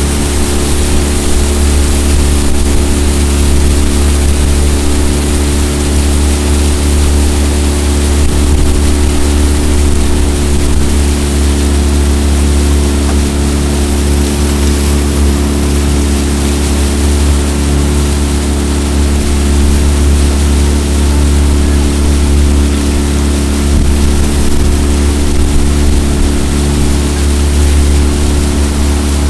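A jon boat's outboard motor running steadily under way, a constant drone that holds one pitch.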